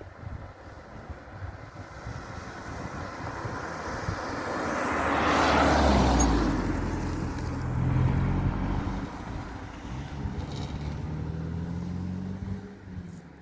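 A car driving past, its engine and tyre noise building to a peak about five or six seconds in and fading away. Another engine follows, swelling again around eight seconds and rising in pitch near the end.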